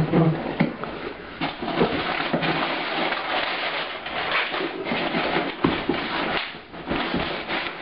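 Packaging being handled and unwrapped: a steady run of rustling and crinkling with irregular crackles.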